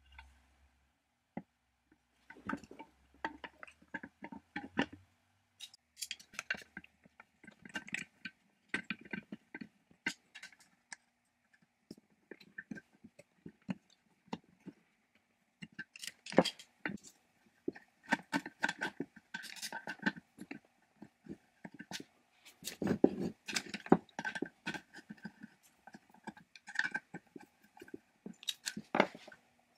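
Irregular clicks, knocks and scrapes of hands reassembling a small engine: a plastic fuel tank knocking against the aluminium housing and a screwdriver working screws.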